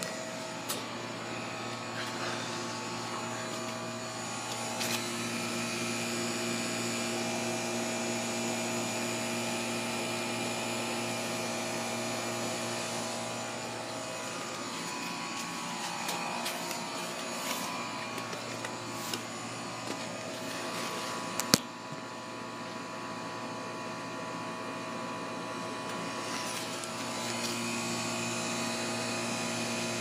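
Central air conditioner outdoor condensing units running: a steady electric hum under the air noise of the condenser fan. A few light ticks come in the middle, and one sharp knock about two-thirds of the way through.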